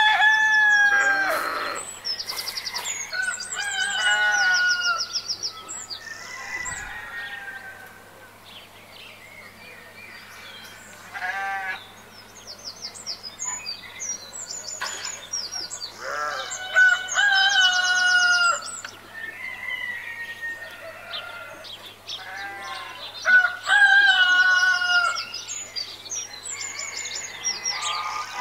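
Farmyard ambience: roosters crowing several times, loudest near the start and again in the second half, with hens clucking and small birds chirping high in between.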